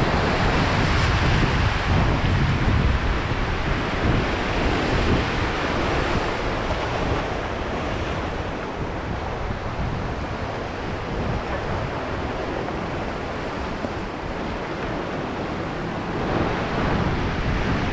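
Sea surf washing against a rocky shore, a steady rush of water with wind buffeting the microphone, a little louder in the first half.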